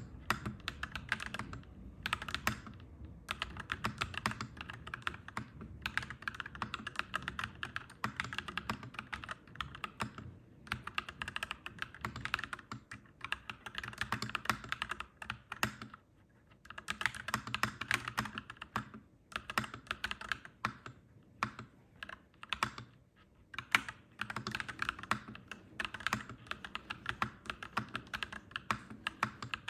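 Mechanical keyboard typing: clacky keystrokes in quick runs, broken by short pauses.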